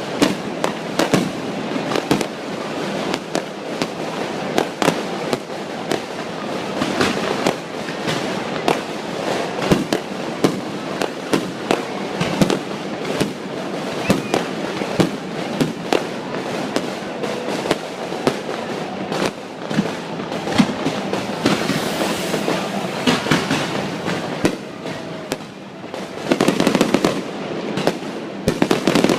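Fireworks display: a continuous run of sharp bangs and crackling, several a second, with a denser volley near the end.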